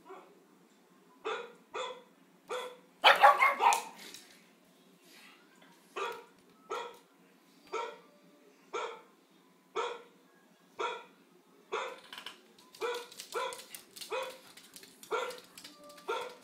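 Dog barking: a run of short, single barks, mostly about one a second, with a louder flurry of rapid barks about three seconds in.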